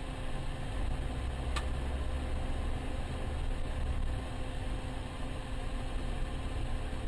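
Steady low rumble of a car's engine and road noise, heard from inside the vehicle through a dashcam microphone. A faint brief click comes about a second and a half in.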